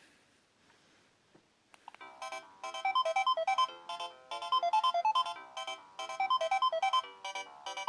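Samsung C100 mobile phone playing one of its preloaded ringtones: after a couple of faint clicks, an electronic melody of quick, short notes in repeating phrases starts about two seconds in.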